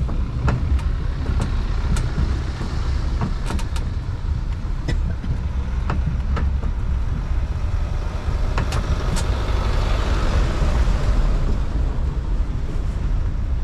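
Low, steady rumble of a road-going tourist train rolling over cobblestones, heard from on board, with irregular sharp knocks and rattles. A broader hiss swells briefly about two-thirds of the way through.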